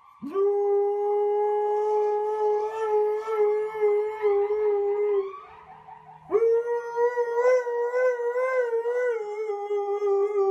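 Siberian husky howling: two long, held howls with a pause of about a second between them, the first rising quickly at its start and then steady, the second slightly wavering.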